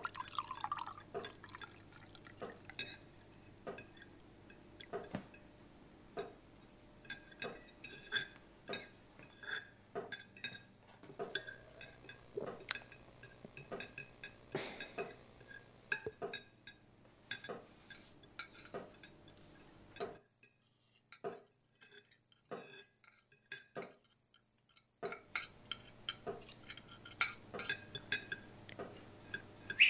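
Cutlery clinking against china plates and glassware during a meal, in scattered small, separate clinks over a faint steady hum. The clinks stop for about five seconds past the middle, then resume.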